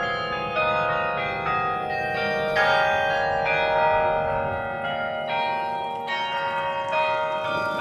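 The 68-bell Carillon Berlin being played by hand from its keyboard. It plays a slow melody, with bell notes struck about once a second and each ringing on over the next.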